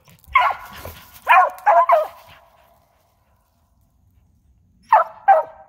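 Squirrel dog barking treed, the tree bark that says she has a squirrel up the tree: four quick barks in the first two seconds, a pause, then two more near the end.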